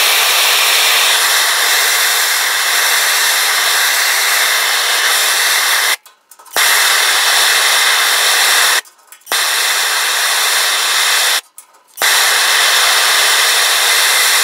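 Gas torch flame hissing steadily as it heats a crack in aluminum sheet for brazing. The hiss cuts out sharply three times for about half a second each and comes straight back.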